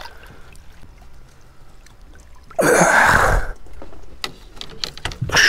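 Water splashing and draining off a landing net holding a big flathead catfish: a loud rush about a second long just before the middle, and a shorter one at the very end, with light trickling and small knocks between.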